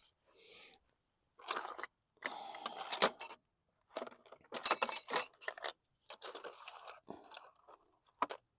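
Metal wrench sockets clinking and rattling as they are rummaged through by hand in search of a 5/8-inch socket, in irregular bursts of sharp clatter, the busiest around the middle, with one last clink near the end.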